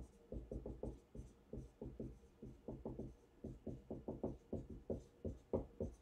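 Dry-erase marker writing on a wall-mounted whiteboard: a quick, irregular run of short taps and strokes as letters are written.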